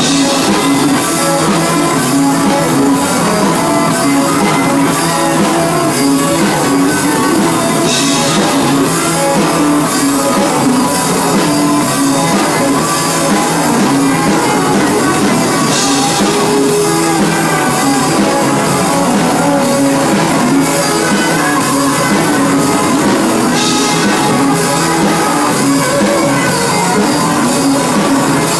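A live rock band playing: electric guitar, bass guitar and drum kit, with cymbal crashes about every eight seconds.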